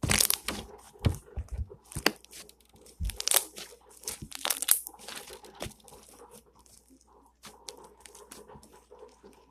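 Slime being stretched and squished by hand: a run of sticky crackles and small pops as trapped air bursts, thinning out after about five seconds.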